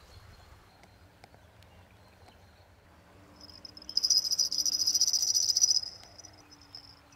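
Clip-on fishing bite-alarm bells (small metal jingle bells on green rod clips) shaken by hand, giving a rapid, high tinkling. It starts faintly about three seconds in, is loud for about two seconds, then falls to faint jingles.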